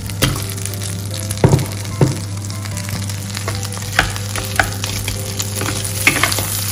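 Mixed vegetables sizzling in hot melted butter in a nonstick pan, with a few sharp knocks as they are tipped in and stirred with a wooden spatula.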